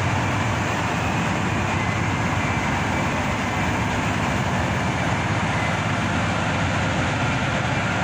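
Steady industrial rumble and hiss of a coal terminal's running conveyor belts and shiploader, with a faint high whine.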